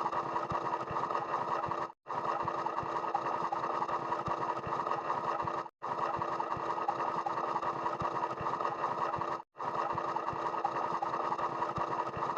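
A steady, busy mechanical running sound effect, a small machine with rapid fine ticking, played as a loop about four seconds long that cuts out briefly between repeats.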